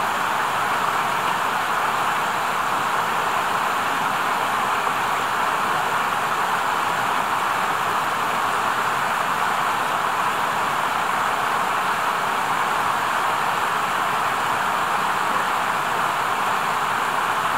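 Steady rush of a shallow mountain stream running over rocks, an even, unchanging water noise.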